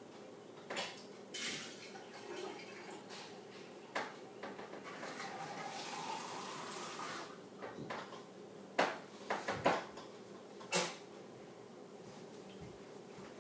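Scattered clinks and knocks of dishes and kitchenware being handled out of sight, with a few louder clacks close together past the middle.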